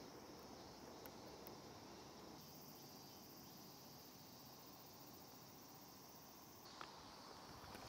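Near silence: faint outdoor ambience with a steady high insect hum from the roadside grass, and one light click near the end.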